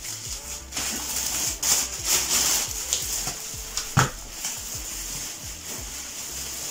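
Clear plastic packing film crinkling and rustling as it is handled, in irregular bursts, with one sharp knock about four seconds in.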